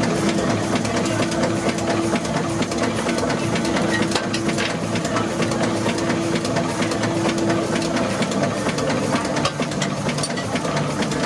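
Steam engine running steadily with a fast mechanical clatter and a steady hum that fades out about eight seconds in.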